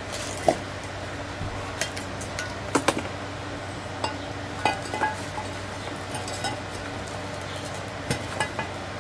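Scattered metal clinks and knocks as a new front hub and bearing assembly for a Chevy K2500 is set into its brake rotor and the two are lined up and handled, over a steady low hum.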